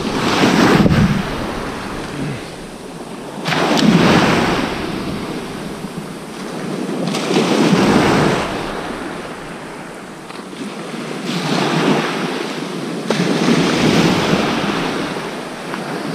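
Sea waves breaking and washing up the beach, swelling and falling back about every four seconds.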